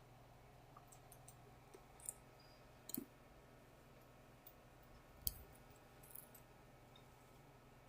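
Near silence with a few faint, sharp clicks, about four in all; the loudest comes about five seconds in.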